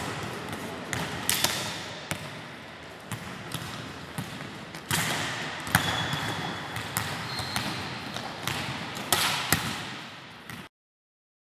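Volleyballs being struck by hands and arms and bouncing on a wooden gym floor, giving sharp slaps and thuds at irregular intervals over the general noise of a large hall. The sound cuts off abruptly shortly before the end.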